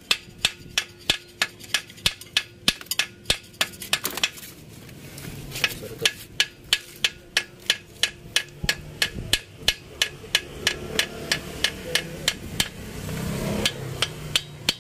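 Ball-peen hammer tapping steel on steel around the rim of a cylinder liner in an Isuzu 4BC2 diesel engine block. The taps come fast and even, about three a second, with a pause of a second or so around four seconds in.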